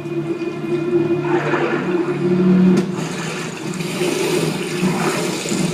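Rushing, swelling water noise over a sustained low musical drone.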